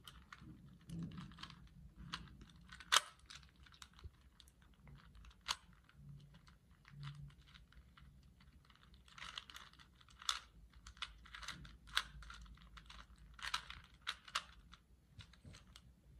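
Rubik's cube being twisted by hand: irregular clicking of its plastic layers turning, with quicker runs of clicks about ten and thirteen seconds in.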